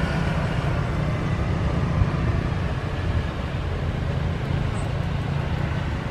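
Twin-engine turboprop transport running its engines with propellers turning as it rolls along the runway, heard as a steady low rumble.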